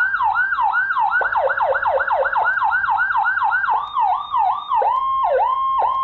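Electronic siren from a replica Whelen HHS 200-watt siren module, played loud through its siren speaker while it is switched from tone to tone. It begins with fast repeated pitch sweeps, slows to wider sweeps about four seconds in, then changes to a steady tone broken by quick dips several times a second.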